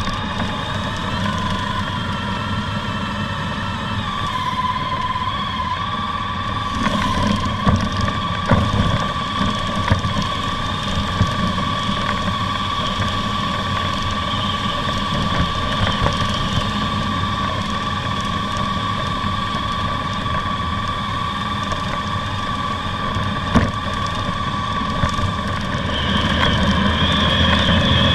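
Honda ST1300's V4 engine running steadily on the move, with a steady high whine over a low rumble and a few short knocks about a third of the way in. It grows louder near the end.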